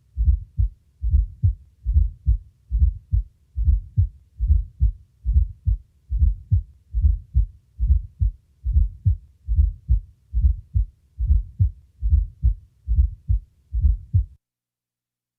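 Heart sounds recorded at the cardiac apex of a man with heart disease: steady, regular low thuds, each beat carrying a fourth heart sound (S4, atrial gallop) just before the first heart sound. The S4 is the sign of a stiff, poorly compliant left ventricle. The beats stop about a second before the end.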